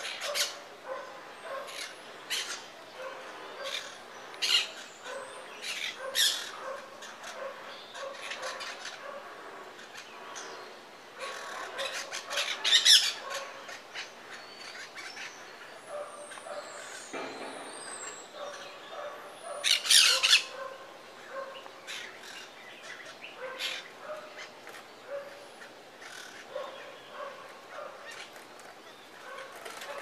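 Parakeets calling in short, scattered bursts, the loudest near the middle and about two-thirds of the way through.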